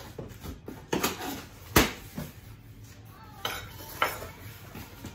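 A large cardboard shipping box being opened by hand: flaps pulled back with cardboard rustling, and a few sharp clicks and knocks, the loudest a little under two seconds in. Near the end, a small cutting tool is set down on the table with a knock.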